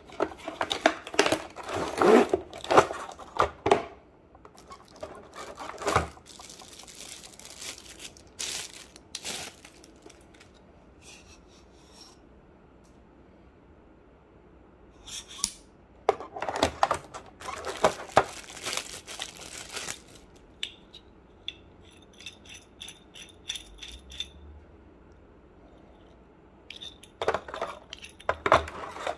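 Unpacking a camera mount: a cardboard box being opened, and a clear plastic packaging tray and plastic bags crinkling and rustling as parts are handled. The sound comes in bursts of rustling and clicking, with quiet pauses between.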